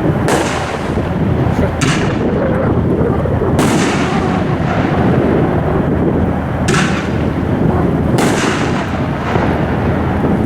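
A 500-gram consumer fireworks cake firing: a loud, continuous rumble of bursts, with about five sharp reports standing out over it.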